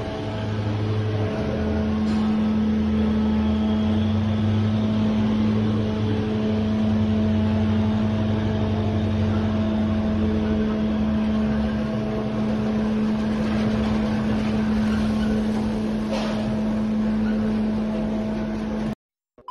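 Engines of tracked amphibious assault vehicles running in a ship's enclosed steel well deck: a steady low drone with a constant hum over it. It cuts off suddenly near the end.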